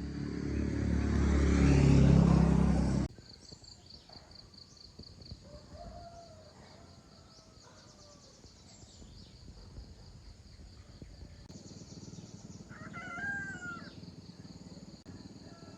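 A loud rising sound that cuts off suddenly about three seconds in, followed by rural outdoor ambience: a steady pulsing insect buzz with a few faint chicken calls, the clearest about thirteen seconds in.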